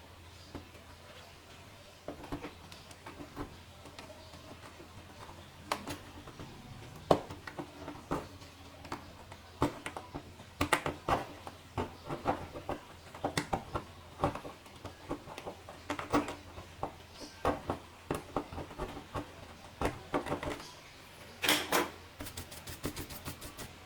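Irregular clicks and knocks of laptop lid parts being handled and worked on, with a quick, even run of ticks near the end.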